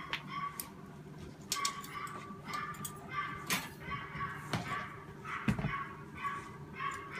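Dog barking over and over in short, high calls, with a few sharp knocks among them.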